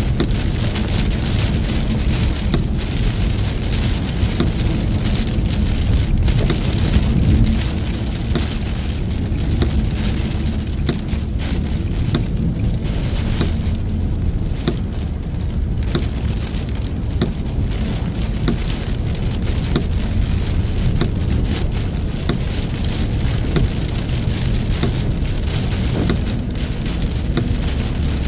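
Heavy rain hitting a car, with many scattered drop ticks over a steady low rumble.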